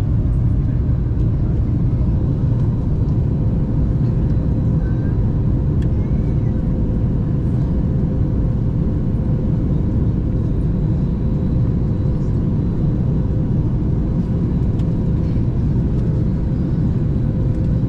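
Steady low rumble of a Boeing 737 MAX 8 airliner cabin in flight: noise from the CFM LEAP-1B turbofan engines and the air rushing past, with a faint steady tone above it.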